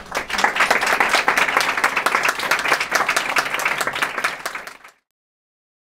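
Audience applauding, many people clapping at once; the applause cuts off suddenly about five seconds in.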